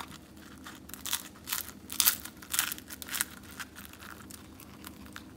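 Crisp batter crust of fried banana fritters crackling and crunching as they are torn apart by hand; the cooled batter is still crisp. A quick run of short, sharp crackles, loudest about two seconds in, thinning out after about three seconds.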